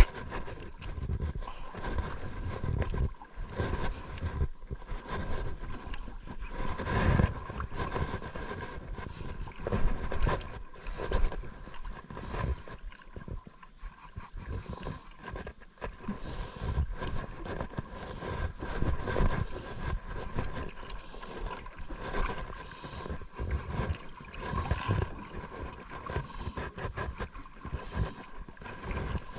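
Wind buffeting the microphone and water lapping and splashing against a small boat's hull, in uneven gusts, over a faint steady high hum.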